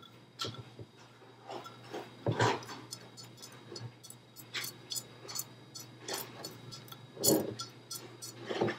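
Small pebbles being placed by hand onto potting soil inside a glass terrarium jar: scattered light clicks, with louder rustling scrapes about two and a half seconds in and twice near the end.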